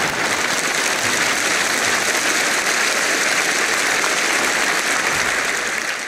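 Audience applauding, a steady clapping that begins to fade near the end.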